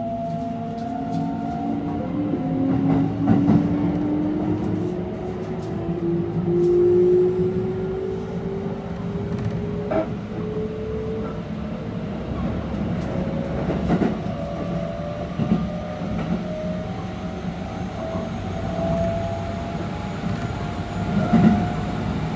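Mitsubishi GTO-VVVF inverter and traction motors of a Keikyu 600 series train whining, the tones climbing slowly in pitch as the train accelerates away from a station, over steady running rumble. Wheels clack over rail joints every few seconds.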